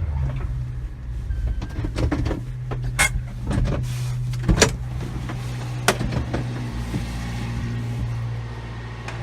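1991 Subaru Sambar mini truck's rear-mounted four-cylinder engine running steadily with a low hum. A few sharp clicks and knocks come through, the loudest near the end.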